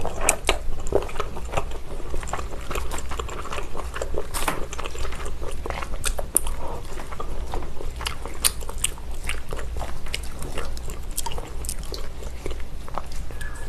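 Close-miked chewing and crunching of cold abalone mulhoe with noodles and chopped Cheongyang chili, with scattered sharp clicks as chopsticks stir through the glass bowl, over a steady low hum.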